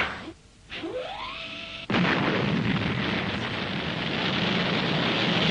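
Animated sound effect of a jet airliner taking off: a short rising whine, then a loud steady roar of jet engines that starts abruptly about two seconds in.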